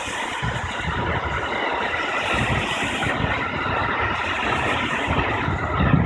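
JR West limited express electric train (271-series and 281-series sets coupled) passing through a level crossing, a steady rush of running noise with the wheels clattering over the rail joints. The level crossing's warning bell rings throughout as a steady repeating tone.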